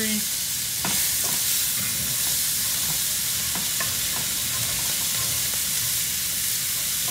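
Diced onion, garlic, celery, carrots and green beans sizzling in olive oil in a skillet while being stirred with a wooden spatula. The sizzle is steady, with a few light taps and scrapes of the spatula against the pan, the clearest about a second in.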